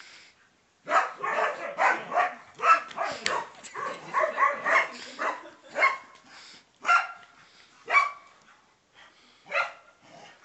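Dog barking rapidly for several seconds, then a few single barks spaced out near the end.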